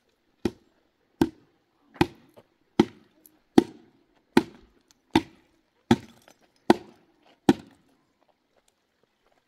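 Ten even, sharp blows on wood, about one every 0.8 seconds, each with a short woody ring: steady striking work such as hammering or chopping during construction.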